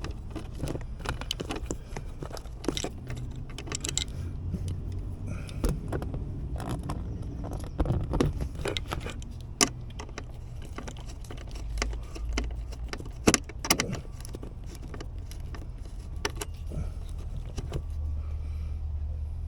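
Small metallic clicks and clinks of a screwdriver working Torx screws and of loose screws being handled while the center console fasteners are taken out. The ticks are irregular, with a couple of sharper knocks about halfway through.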